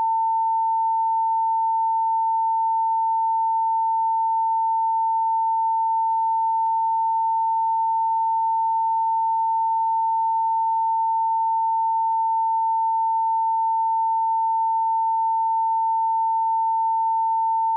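Steady electronic alert tone at a single unbroken pitch and constant loudness, with a faint hiss beneath.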